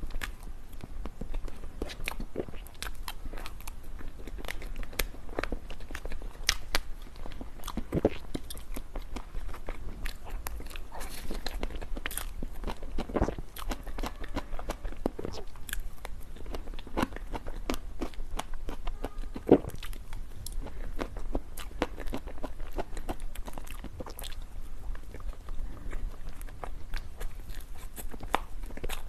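Close-miked eating sounds: steady biting and chewing, with many small wet clicks, smacks and crunches throughout.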